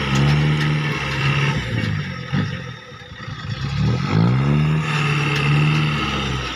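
Cargo truck engine revving hard under load as the truck works through soft, wet field mud. The revs sag and go quieter about two seconds in, then climb back up and hold from about four seconds in.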